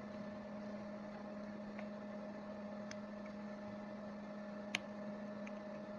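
Steady low electrical hum with a few faint small clicks, the sharpest nearly five seconds in, as of small parts being handled on a bench.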